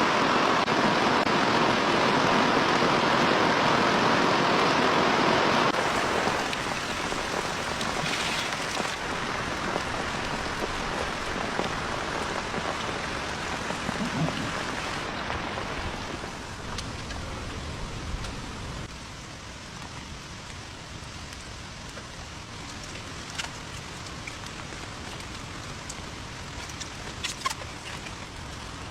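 Heavy rain falling as a steady hiss, loudest for the first six seconds and then easing to a lower, even level, with a few sharp drip ticks near the end.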